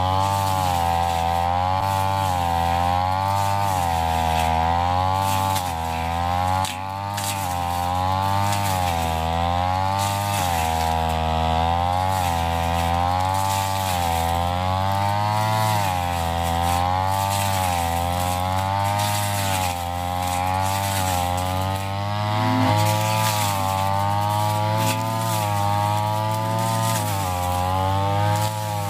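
Ryu backpack brush cutter's engine running at high speed while cutting tall, thick grass, its pitch dipping and rising again every second or two as the blade bites into the grass.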